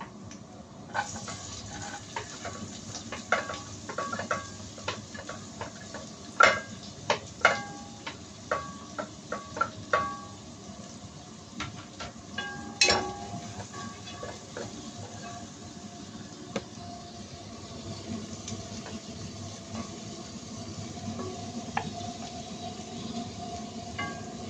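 Kitchen utensils clinking and knocking against a pot and plate, a quick run of sharp ringing clinks about six to ten seconds in and another near thirteen seconds, over a steady sizzling hiss of butter heating in the pot.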